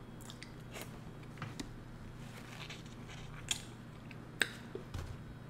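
Faint, sparse sticky clicks and ticks, about ten of them, from fingers handling a sauce-coated shrimp close to the microphone; two slightly louder clicks come past the middle.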